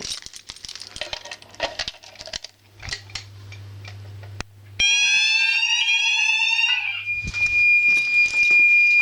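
Fire alarm sounders of a home fire alarm system going off about five seconds in, after some light clicking and a low hum: a loud sweeping tone for about two seconds, then a steady high continuous tone.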